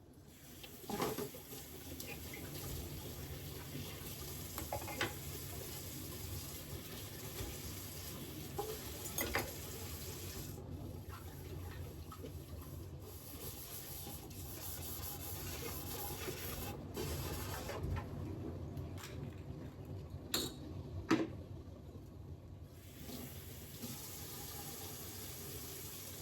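Steady rush of water, with a few light knocks and clinks.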